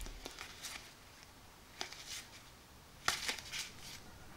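Playing cards being sorted and flipped through by hand: faint rustling and a few light snaps of card against card, the clearest cluster about three seconds in.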